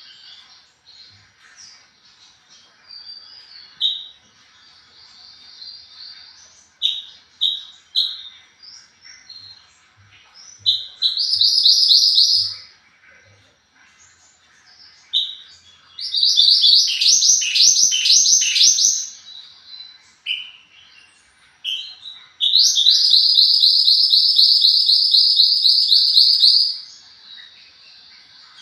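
A small songbird, the 'mantenan gunung', singing a high song around 4 kHz: scattered short chips and notes, then long, fast, buzzy trills lasting several seconds each, three of them, the last and longest about two thirds of the way through. This is a masteran, a song recording played to train captive songbirds.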